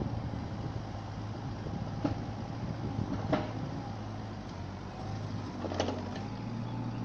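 Kubota mini excavator's diesel engine running steadily as the machine works, with a few sharp knocks, the loudest about three seconds in and another just before six seconds. A thin whine comes in near the end.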